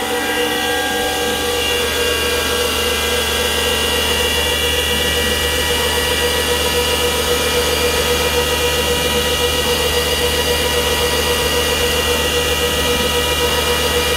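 CNC vertical milling machine cutting a metal part with a small end mill under program control. The spindle and cut make a steady tone over a steady hum, with a slight regular pulsing.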